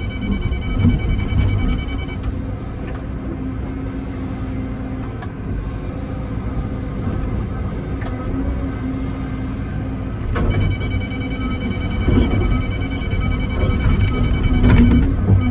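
Excavator diesel engine running under load, with the grade-control system's rapid high beeping for the first couple of seconds and again from about two-thirds of the way through; the beeping signals that the bucket is getting close to target grade. A few knocks from the digging come through.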